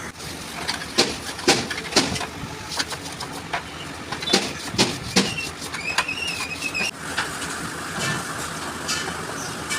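Scattered sharp clicks and knocks of hand work over a steady background hum, with a short warbling chirp about six seconds in.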